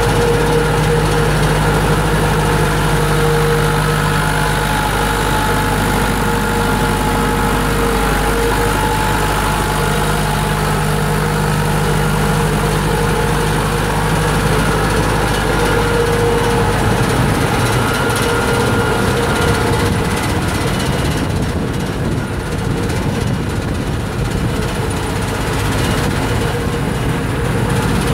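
Massey Ferguson 168 tractor's four-cylinder diesel engine running steadily while it tows and drives a Schuitemaker Feedo 70 feed wagon that is unloading feed. The steady drone eases a little about twenty seconds in.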